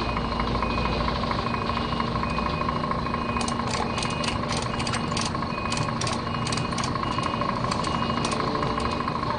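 Scania truck's diesel engine running at low revs while the truck and its trailer creep through a tight manoeuvre, with a reversing alarm beeping steadily, about one and a half beeps a second. From about three and a half seconds in, a cluster of short, sharp high-pitched ticks comes in over the engine.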